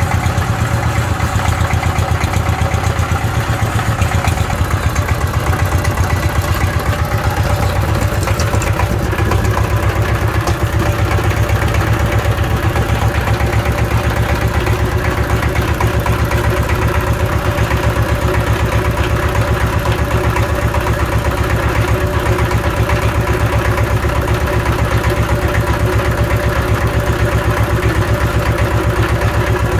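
Changchai 12 hp single-cylinder diesel engine running steadily with a fast, even firing beat. The seller takes its clean sound as the sign of an engine in good working condition.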